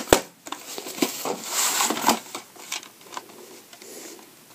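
VHS tape being handled on a wooden surface: a sharp knock as the sleeved tape is set down, then a scraping rustle as the plastic cassette is slid out of its cardboard sleeve, followed by a few light clicks and taps.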